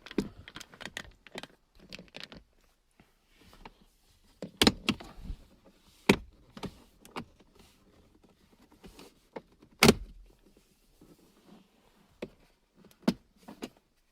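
A plastic centre-console side trim panel being worked loose by hand, with rustling and handling noise and a few sharp clicks and snaps as its retaining clips pop free, three of them loud.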